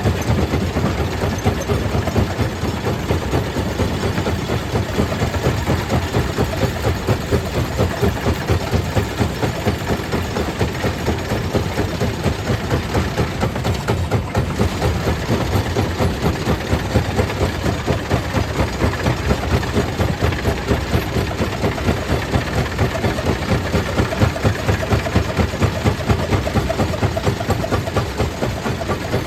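Stone crusher plant machinery running: a steady, heavy mechanical rumble with a fast, even pulsing.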